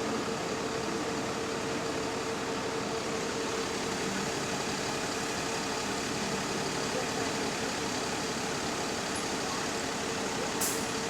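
A bus running at idle, with a steady even hum and a constant whining tone. A short click comes near the end.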